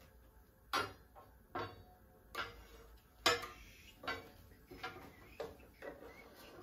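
A series of short, sharp knocks, about one every 0.8 seconds, the loudest a little past three seconds in.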